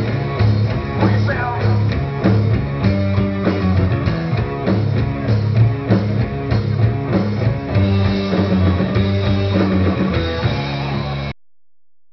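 Rock band playing live: electric guitar, bass and drum kit in an instrumental passage with a steady beat and no singing. The recording cuts off abruptly near the end.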